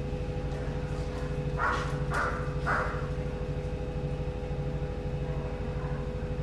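Steady mechanical hum with a regular low pulsing, and three short higher sounds in quick succession about two seconds in.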